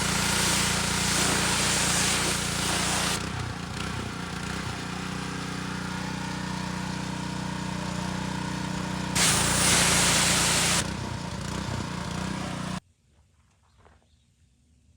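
Water spraying onto a car's ceramic-coated paint, with a steady machine hum underneath. The spray is strong at first, eases after about three seconds and surges again briefly around nine seconds. The sound stops suddenly near the end.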